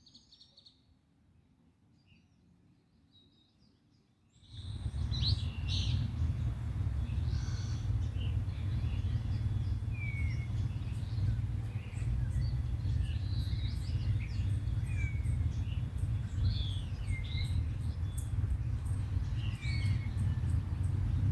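Several birds chirping and singing, with short whistled and sliding calls, over a steady low rumble. Only a few faint chirps are heard at first; about four seconds in, the bird sound and the rumble come in loudly.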